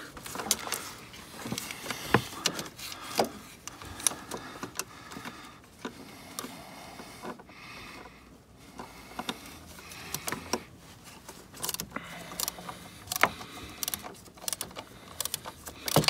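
Scattered, irregular clicks and metallic rattles of a ratchet with a socket on an extension being worked on the throttle body's mounting bolts.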